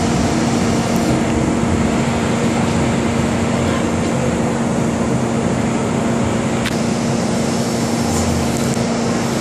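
MTR M-Train electric multiple unit running through a tunnel, heard from inside the car: a steady rumble of wheels and running gear with a steady low hum.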